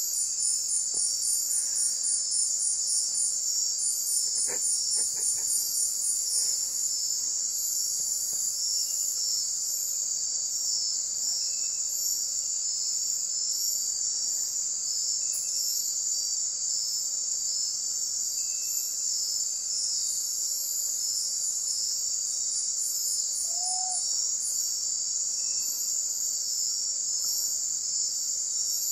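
Night chorus of crickets and katydids trilling steadily in tropical forest. A higher, pulsing trill stops and starts several times over it.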